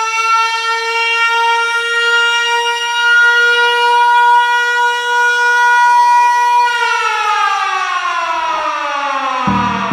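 Alarm siren sounding one steady high tone, then winding down in pitch from about two-thirds of the way through. It is the call-out alarm that sends the firefighters running. Music with a beat comes in just before the end.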